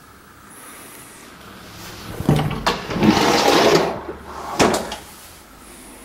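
A wooden closet door being handled and moved by hand: a couple of knocks, a scraping slide lasting about a second, then a sharp clunk as it shuts.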